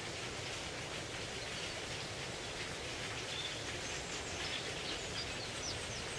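Outdoor ambience: a steady rustling hiss, with several short, high bird chirps from about halfway through.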